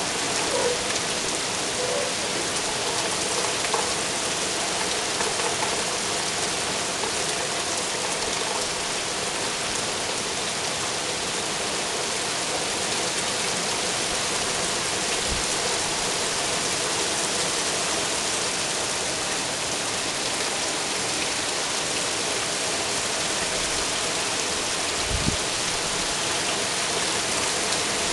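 Steady rain falling, a dense, even hiss of drops hitting surfaces. A few faint brief thumps sound through it, one about 25 seconds in.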